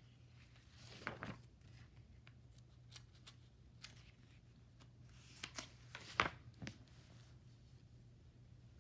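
Pages of a hardcover picture book being turned by hand: soft paper rustling and small clicks, with a louder swish of a page about a second in and another about six seconds in.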